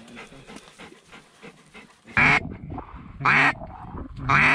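Mallard duck call blown close by: three loud drawn-out hen quacks, about one a second, starting about two seconds in, after faint quick ticking.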